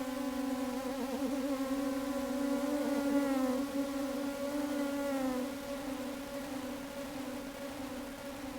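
A sustained drone on one low pitch with a stack of overtones, wavering in pitch from about a second in, then steadying and growing slightly quieter after about five seconds.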